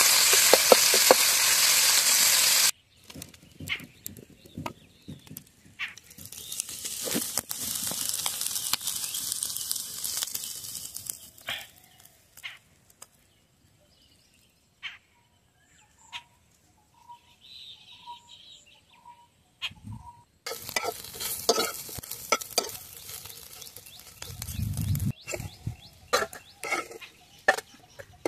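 Prawns sizzling loudly in hot oil in a metal frying pan, cutting off suddenly a few seconds in. After that come quieter stretches of frying with spatula clicks and scrapes, and a quiet pause in which a few short bird-like chirps sound.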